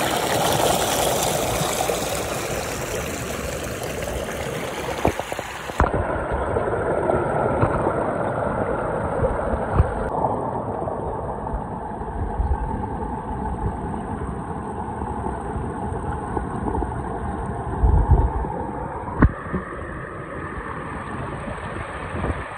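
Shallow mountain stream running over rocks, a steady rush of water. The sound turns duller about six seconds in, and there are a few soft knocks later on.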